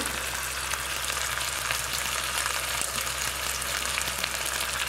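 Seasoned chicken pieces sizzling on onions in a hot stainless steel pot: a steady crackling hiss of frying with many small pops.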